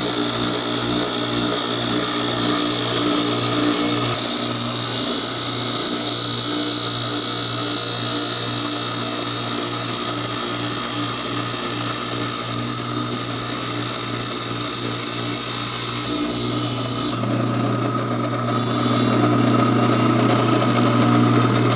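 Wet power saw motor running steadily while its blade grinds through a glass panel, a hissy cutting noise over the motor hum. About three-quarters of the way through, the high cutting hiss thins out while the motor keeps running.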